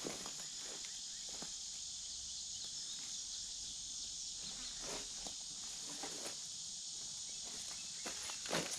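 Steady high-pitched insect chorus, with a few faint knocks scattered through, the clearest near the end.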